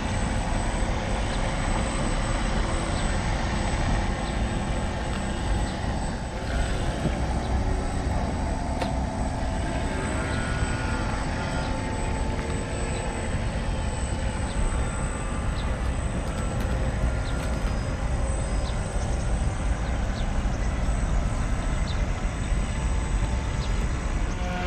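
Radio-controlled 1:40 scale model of a Fjellstrand 40 m catamaran ferry running its motors as it manoeuvres and then heads off across the water: a steady whirring with a thin high whine, over a low rumble.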